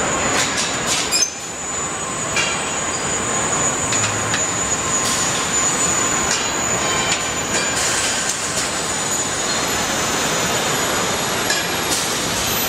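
Truck assembly line machinery running: a steady factory din with a constant thin high whine, broken by scattered metallic clanks and knocks, the sharpest about a second in.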